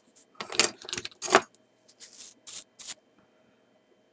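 Short rustling strokes of a brush and hands working over the metal body and shutter mechanism of a disassembled Kiev-17 camera, clearing out debris. A few louder strokes come in the first second and a half, then softer ones around two to three seconds in.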